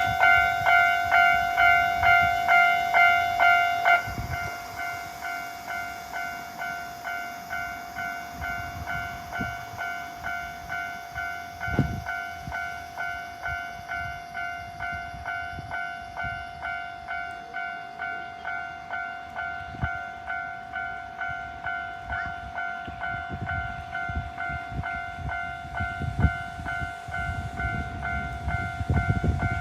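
Japanese railway level-crossing alarm ringing, a repeating electronic ding about twice a second; it drops in level about four seconds in and keeps ringing. Near the end a train's low rumble builds under it.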